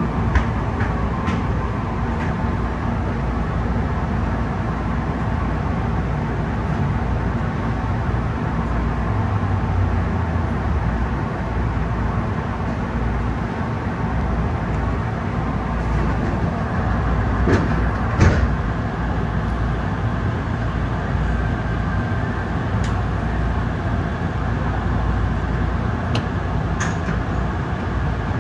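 Tokyu 8500 series electric train running along the line, heard from inside its leading car: a steady low rumble, with a few sharp clicks and knocks from the wheels and track, the loudest pair about two-thirds of the way through.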